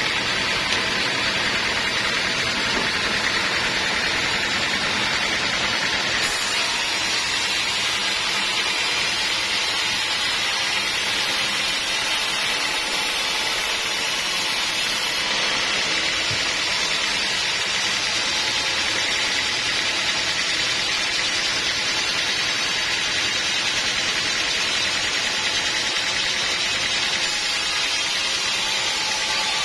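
Sawmill saw cutting teak wood: a steady, unbroken mechanical noise, strongest in the upper-middle range.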